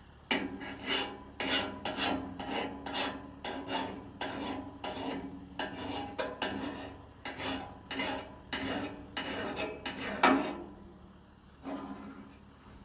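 Hand metal file scraping along the steel edge of a lopper blade in steady strokes, about two a second, with a low ring from the blade under each stroke. The strokes stop a little after ten seconds in, with one more near the end. The filing is working nicks and ridges out of the edge.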